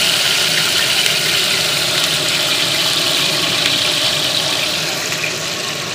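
Chopped onions, carrots and green chillies sizzling in hot oil in a large aluminium cooking pot, a steady hiss that eases a little near the end.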